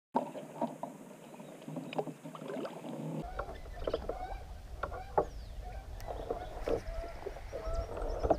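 Sounds aboard a plastic fishing kayak on open water: scattered sharp clicks and knocks of gear against the hull, mixed with short pitched chirping calls. About three seconds in the sound cuts, and from then on wind rumbles low on the microphone.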